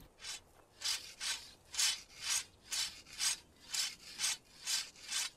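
A knife being sharpened by hand: rasping strokes of the blade, about two a second, growing louder after the first second.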